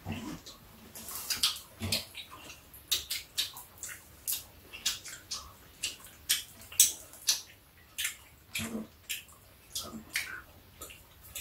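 Metal chopsticks and a spoon clicking and clinking irregularly against a stainless-steel platter and bowls while grilled fish is picked apart at the table.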